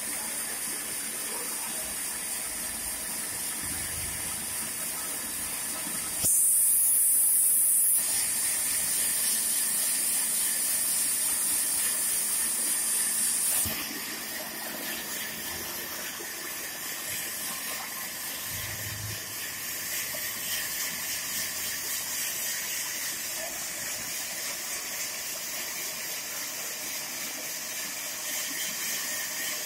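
Steady, hissing machine noise of a large belt-driven sawmill bandsaw running. From about six seconds in, the hiss grows louder and sharper, then drops back to the steady level about fourteen seconds in.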